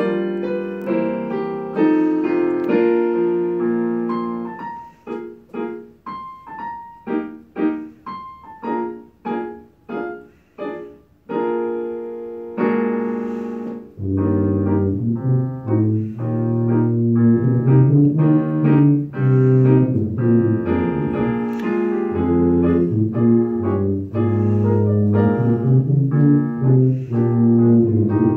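Tuba and digital piano playing a solo piece. The first half is a passage of short detached notes; about halfway in, a loud, low sustained tuba line comes in under the piano.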